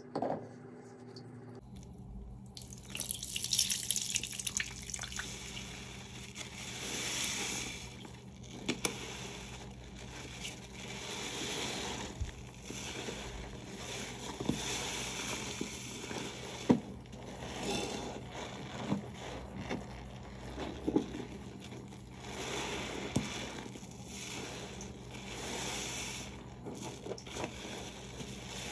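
Wet, sudsy sponge loaded with dish soap being squeezed and squished over a sink, with water dripping and splashing. It starts about two seconds in and comes in repeated swells every few seconds.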